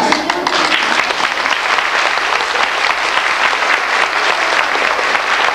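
Audience applauding: many hands clapping in a dense, steady patter that breaks out just as children's singing stops.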